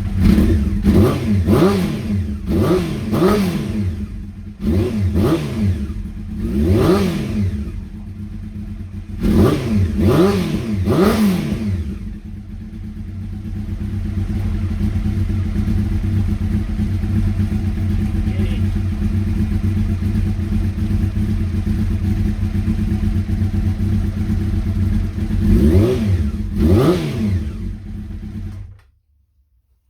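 Honda CBR600F inline-four motorcycle engine running and being revved in quick throttle blips, about a dozen in the first twelve seconds. It then idles steadily, takes two more blips, and cuts off suddenly near the end.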